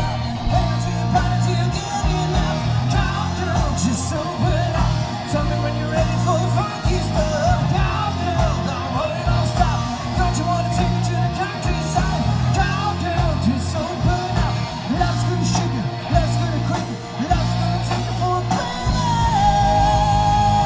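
Hard rock band playing live: electric guitar through Marshall amplifiers over drums, bass and keyboards, with a wavering lead line. Near the end a long held lead note with vibrato.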